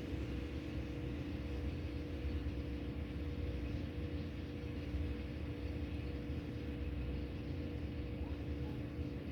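Steady low machine hum with a constant pitched drone, unchanging throughout.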